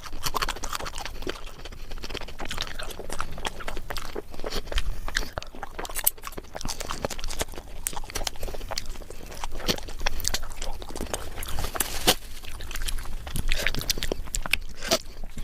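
Close-miked eating sounds: a person chewing and biting food, with many irregular sharp clicks and crackles.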